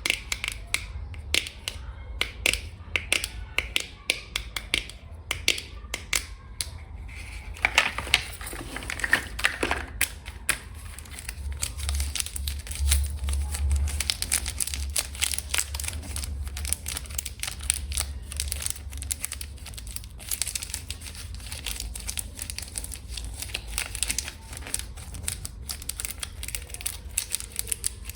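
Long fingernails tapping quickly on packaging and containers, as separate sharp taps at first. From about eight seconds in the taps get denser and mix with crinkly scratching.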